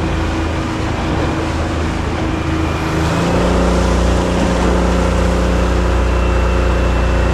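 Small fishing boat's engine running under way, over a steady rush of wind and water. About three seconds in, the engine note shifts and gets louder.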